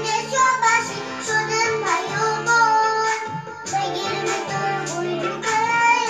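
A young girl singing a Bengali song over a musical backing track with a steady beat and bass line.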